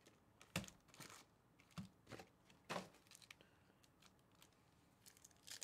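A few short, faint crinkles of foil trading-card packs being pulled from a hobby box and stacked by hand.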